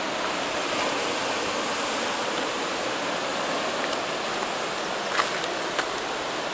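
Ocean surf breaking on the rocks below, heard as a steady wash of noise, with a couple of faint taps about five seconds in.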